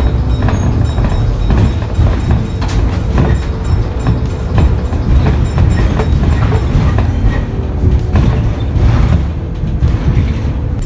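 Rumble and rattling of a moving vehicle heard from inside, with background music laid over it.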